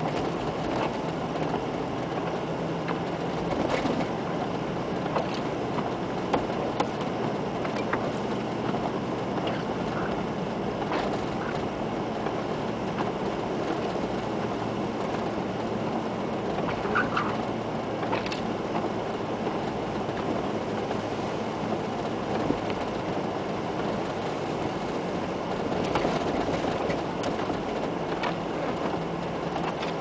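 1997 Land Rover Discovery driving through deep snow, heard from inside the cabin: a steady engine and drivetrain rumble with scattered knocks and thuds.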